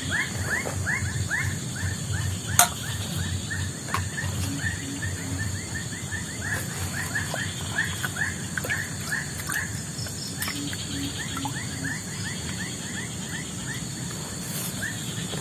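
Outdoor animal chorus: short falling chirps repeated rapidly, several a second, over a steady high drone. A low pulsed call comes in short runs of a few pulses three times, and there is one sharp click about two and a half seconds in.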